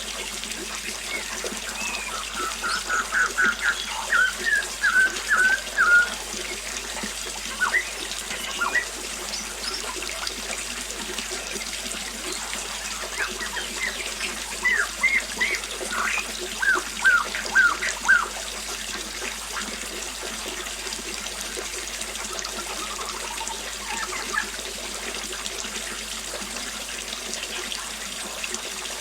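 Small waterfall splashing steadily, with a bird calling in two runs of quick repeated short notes, about two seconds in and again about thirteen seconds in; the bird notes are the loudest sounds.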